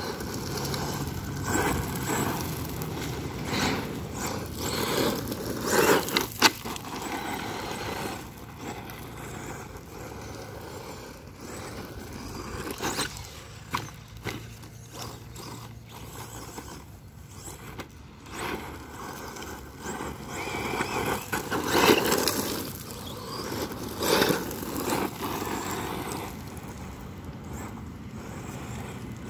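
Brushless RC truck driven hard on gravel and grass, its motor and tyres scraping and spraying loose gravel in repeated louder bursts as it accelerates and slides.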